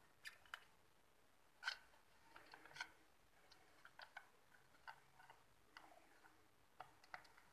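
Faint, irregular light clicks and taps from a soldering iron and a wire being worked against a circuit board while a speaker wire is soldered on.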